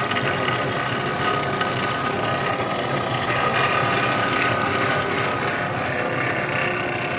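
A 2016 Dodge Grand Caravan's 3.6-litre V6 idling steadily with a fast, even ticking noise. The owner thinks it sounds like the timing chain and the variable valve timing gear, not a pulley or the alternator bearing.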